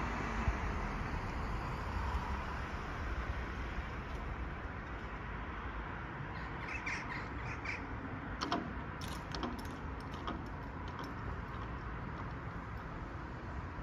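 Steady outdoor rumble of wind and road traffic. A bird calls several times in quick succession about halfway through, and a few sharp clicks follow about a second later.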